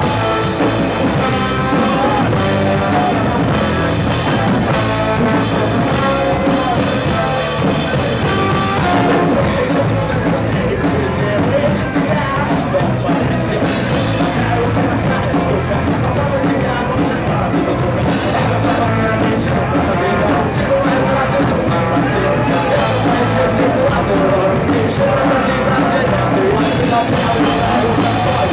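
Rock band playing live with electric guitars, bass and drum kit, and a vocalist singing over them.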